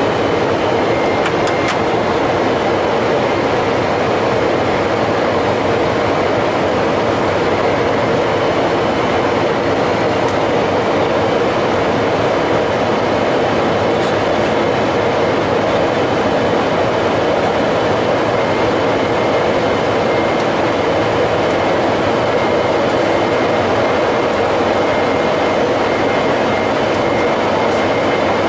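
Steady rush of airflow and engine noise on the flight deck of a four-engine jet airliner climbing out after takeoff, with faint steady high-pitched tones over it.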